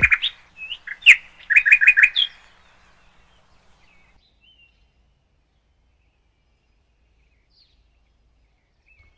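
Songbird chirping: a quick run of sharp, high chirps in the first two or three seconds, then only a few faint chirps.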